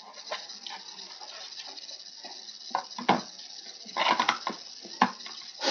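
Hard plastic figure-stand parts, a round base and a clear support arm, knocking and clicking as they are handled and fitted together. Several sharp clacks come in clusters, the loudest about three, four and five seconds in.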